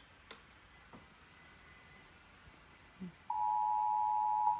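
Emergency Alert System tone burst over the radio broadcast: a loud, steady electronic tone starts about three seconds in and cuts off just before the end, the first of repeated one-second bursts that signal an emergency alert is about to be read.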